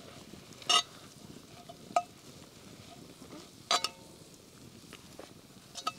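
Onions and spices being stirred in a Dutch oven, the spoon clinking against the pot four times over a faint sizzle.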